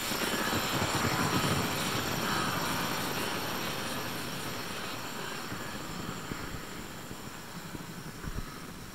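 Experimental electronic soundtrack drone: a noisy, hissing wash with faint steady high tones above it, slowly fading out, with a brief low thump near the end.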